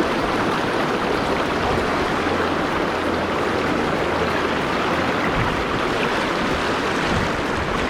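Steady rushing of a river's current, an even noise with no breaks.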